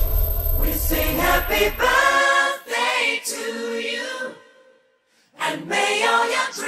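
Unaccompanied voices singing, like a small choir, over the deep rumble of an explosion sound effect that dies away about two seconds in. The singing stops for about a second near the middle and then starts again.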